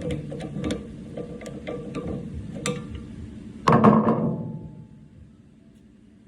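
Hammer blows on a punch, driving a broken rivet's pin out of a mower handle's welded steel tank clamp: a run of sharp metallic taps, about three a second, then one louder metallic clang with a short ring about two-thirds of the way through.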